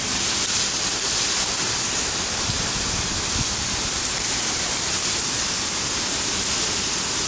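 Heavy rain pouring down in a downpour, a steady even hiss.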